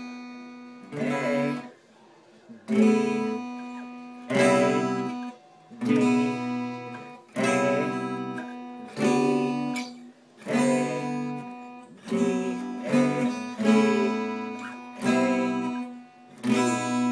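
Guitar playing the demonstrated chord progression: a strummed chord roughly every second and a half, each left to ring and fade, with a few quicker strums near the end.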